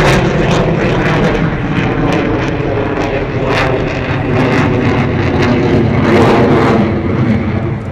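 Military jet flying overhead, a loud steady roar that eases slightly near the end, picked up coarsely on a phone's microphone.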